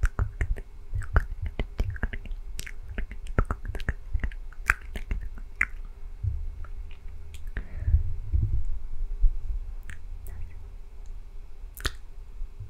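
Unintelligible ASMR whispering very close to a condenser microphone, with many sharp wet mouth clicks and a low muffled rumble, a hand cupped around the mic.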